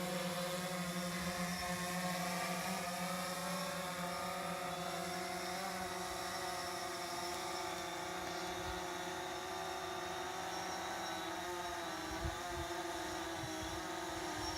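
A small camera drone's motors and propellers buzzing steadily, several held pitches that waver slightly, with a few low thuds in the last few seconds.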